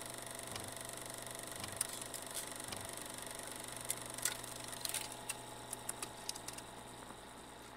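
A steady hum with hiss, under a soft low pulse about once a second that stops about three seconds in, then scattered sharp clicks; it fades near the end.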